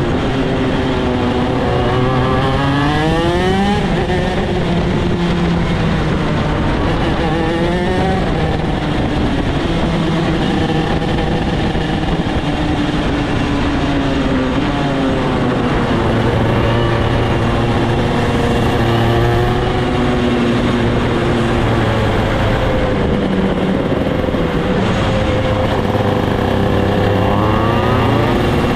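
Onboard sound of a shifter kart's two-stroke engine pulling the kart along at low speed. Its pitch climbs steeply in about four short rises and sinks back or holds steady between them.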